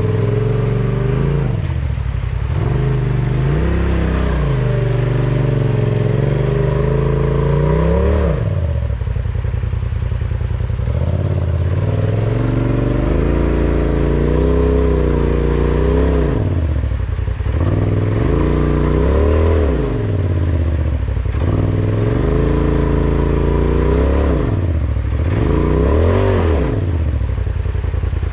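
Polaris RZR side-by-side engine revving up and down again and again under load as it crawls up a steep rock slab, the pitch rising and falling every two to three seconds.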